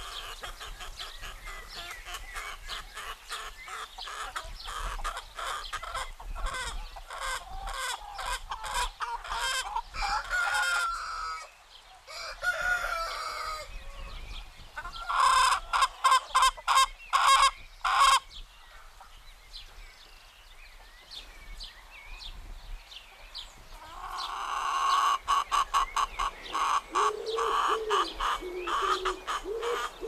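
Domestic chickens clucking, with a rooster crowing among them and a burst of loud, rapid calls a little past halfway.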